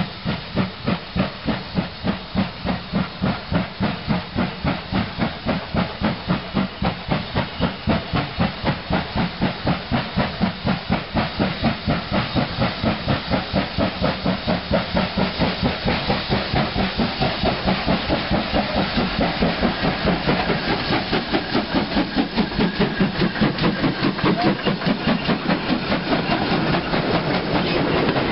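Steam locomotive working a train towards the listener, its exhaust beating in an even chuffing rhythm of about three beats a second with a hiss of steam. The chuffs grow louder and closer toward the end.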